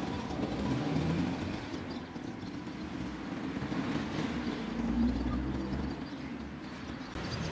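Motor oil glugging and gurgling as it pours from an upturned one-quart plastic bottle into the oil filler of a BMW R1100RS air-cooled boxer engine.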